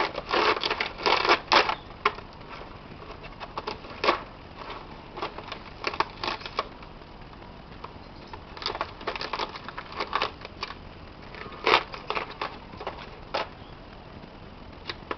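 Knife blade cutting and prying into the hard dry shell of a dead gourd: irregular crunching and cracking strokes that come in short clusters with pauses between.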